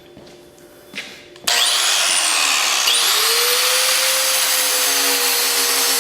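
Angle grinder starting up about a second and a half in, then grinding into an iPhone 6's metal body: a loud, steady hiss of the disc on the phone over a high motor whine.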